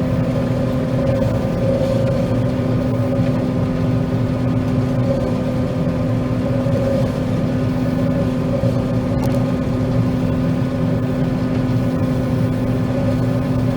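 John Deere 9500 combine running steadily while harvesting soybeans: an even engine drone with a constant whine that holds the same pitch throughout.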